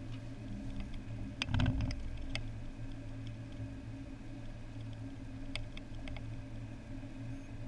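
A car's engine and road noise heard from inside the cabin as the car rolls slowly: a steady low hum, with a brief knock about one and a half seconds in.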